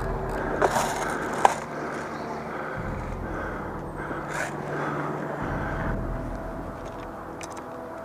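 Scraping and rustling noise from the player's gear and camera as he moves behind cover, with two sharp knocks in the first couple of seconds.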